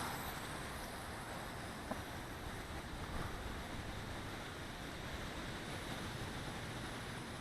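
Strong wind rushing over the microphone as a steady, even roar of noise, with no motor whine heard above it.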